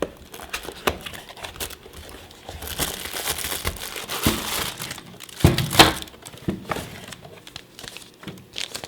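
Product packaging being opened and unpacked: crinkling and rustling of wrapping with scattered clicks and knocks. It is loudest in a couple of sharp bursts a little past halfway.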